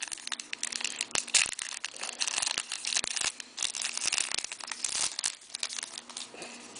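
Crinkling and tearing of a hockey card pack wrapper being opened, with the cards handled. It is a dense, irregular crackle that eases off near the end.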